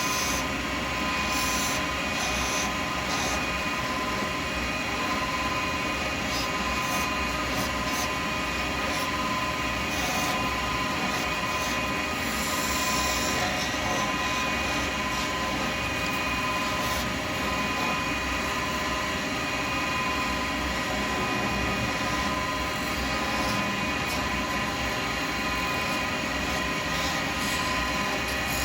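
Wood lathe running at a steady speed with a constant motor whine, while a skew chisel cuts at the spinning acrylic pen blank in short, intermittent scraping passes.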